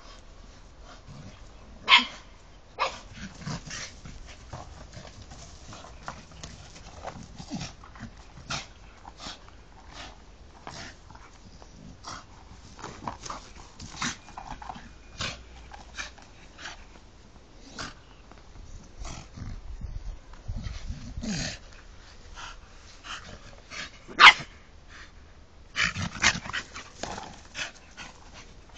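Dogs playing with a toy: scuffling and many short, sharp sounds, with a few louder short barks, the loudest about two seconds in and again near the end.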